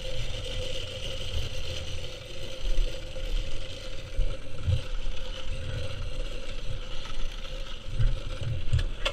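Mini-bike coasting downhill on a rough dirt trail, its chain and drivetrain rattling steadily, with a steady hum and irregular low buffeting thumps from the bumpy ride and wind.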